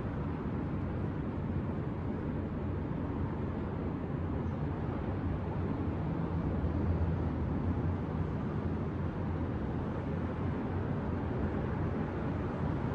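Steady low rumble of distant city traffic at night, swelling slightly a little past the middle.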